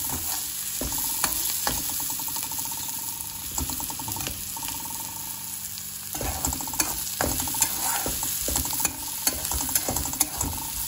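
Metal spatula stirring and scraping chopped red amaranth stems and onion in a hot kadhai over a steady frying sizzle. Sharp clicks of the spatula against the pan come more often and louder in the second half. The stems are being partly cooked before the leaves go in.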